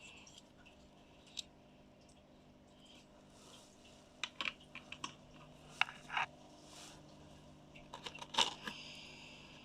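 Scattered small clicks, taps and light rustles of miniature toy pieces and packaging being handled: a single tick, then several between about four and six and a half seconds in, and a quick cluster near the end.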